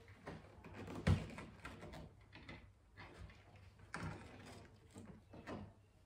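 Plastic clicks and knocks from a screwdriver and small trim pieces being worked on a car's interior door trim, as screws and covers come off. A series of separate knocks, the loudest about a second in.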